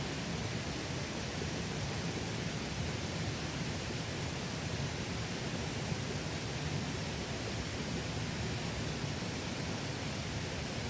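Mountain valley stream flowing, a steady, even rush of water with no breaks.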